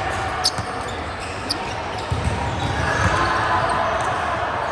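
Indoor volleyball game in an echoing sports hall: two sharp hits about half a second and a second and a half in, over players' voices and general hall noise that swell near the end.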